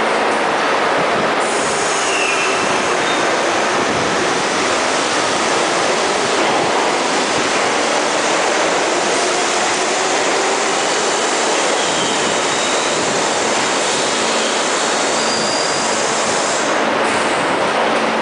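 New York City subway train pulling out of the station and running off down the tunnel: a steady, loud rolling rumble with a few brief, faint high-pitched wheel squeals.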